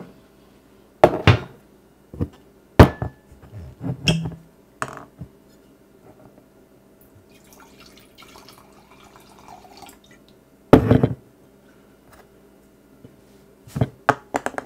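White wine poured from a bottle into a stemless glass, a soft trickle in the middle of the stretch. It is set between sharp knocks of the bottle and glass handled and set down on a hard countertop: several in the first few seconds, a loud one about two-thirds of the way through and a quick cluster near the end.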